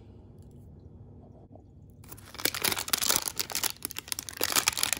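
Crinkly plastic foil wrapper being torn and peeled off a toy capsule, a dense crackling that starts about two seconds in and runs on.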